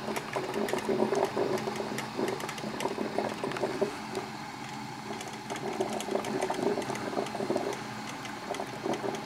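Black & Decker drip coffee maker brewing: irregular gurgling and sputtering crackles over a steady low hum as the heated water is pushed up through the machine.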